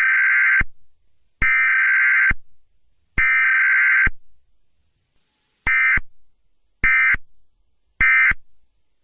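Emergency Alert System SAME data bursts, high screeching digital tones: three long header bursts, then about a second later three short end-of-message bursts. With no voice message between them, this is the pattern of a Required Weekly Test.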